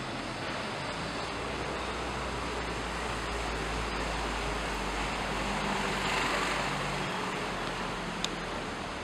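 Steady city street traffic noise with a low hum, swelling a little about six seconds in, and a single sharp click near the end.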